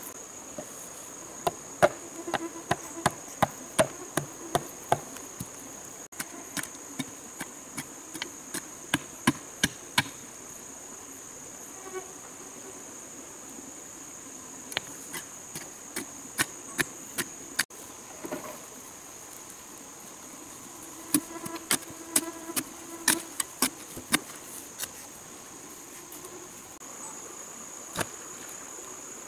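Sharp knocks in runs of a few a second, broken by pauses, from soil being rammed down around bamboo fence posts with a bamboo pole. A steady, high-pitched insect drone sits underneath.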